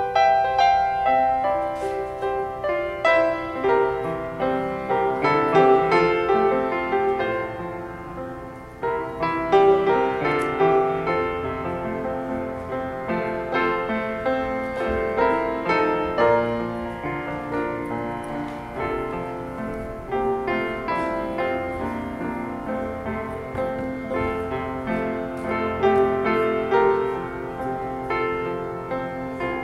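Solo piano music, with many notes struck and left to ring: the postlude that closes the service after the benediction.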